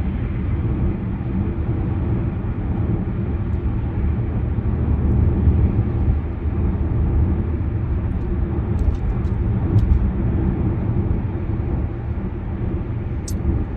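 Steady low road and engine rumble of a car being driven, heard from inside the cabin, with a few light clicks in the second half.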